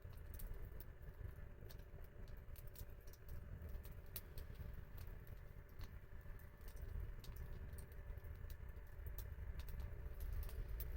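Wood fire crackling: irregular small snaps and pops over a steady low rumble.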